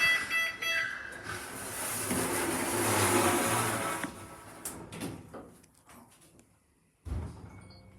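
Lift doors closing: a rapid pulsing beep for about the first second, then a rushing slide that swells and fades over a few seconds. A short low thud near the end.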